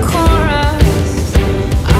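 Background music: a pop song with a melodic line over a steady beat.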